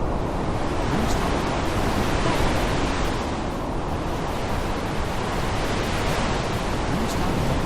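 Rainstorm: a steady hiss of heavy rain over a low rumble, the hiss swelling and easing every few seconds.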